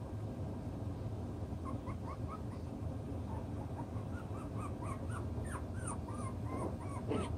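Six-week-old toy poodle puppies whimpering in a string of short, high whines that come thicker in the second half, ending in a sharper yelp near the end.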